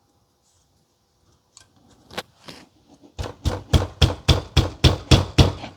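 A few light clicks, then a rapid run of about ten hard knocks, roughly four a second, starting about three seconds in. These are a CPU cooler and its CPU being knocked to break the chip loose from PTM 7950 thermal paste that holds it like glue.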